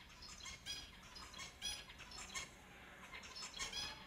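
Finches calling: a quick run of short, high calls, several a second.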